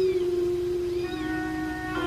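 Kittens mewing: short, high, thin cries that rise and fall, about one a second. Under them, background music holds long steady notes.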